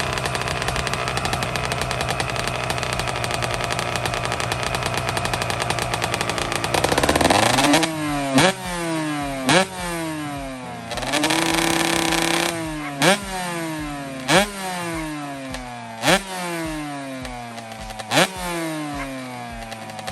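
2005 Kawasaki KX125 two-stroke single-cylinder engine running at a steady speed, then revved. Its pitch climbs about seven seconds in, then the throttle is blipped about six times, with one rev held briefly, the note falling back after each blip.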